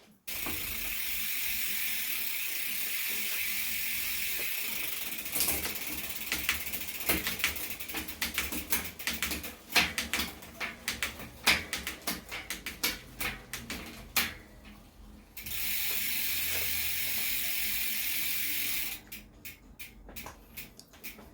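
Mountain bike drivetrain turned by hand through the gears: the chain runs steadily over the cassette, broken by a long spell of irregular clicks from shifting and the rear hub's ratchet, then runs steadily again before more clicks near the end. The shifting sounds smooth and working well.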